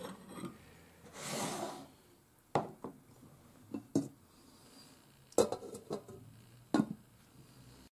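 Tableware knocking and clinking on a table: a spoon in a glass bowl, bowls and a cup set down, and a glass lid set on a soup pot, as a string of sharp separate knocks, the loudest a little past the middle. A short soft rushing noise about a second in.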